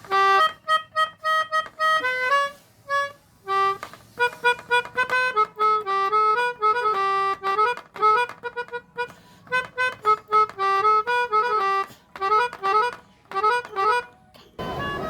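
Pianika (melodica) playing a telolet bus-horn ('basuri') tune in short, clipped notes and quick runs, with brief pauses between phrases.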